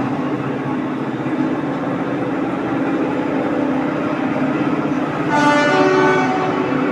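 Overhead crane in a locomotive shed hoisting a heavy steel lifting frame, with a steady mechanical hum. About five seconds in, a horn-like pitched tone sounds for about a second.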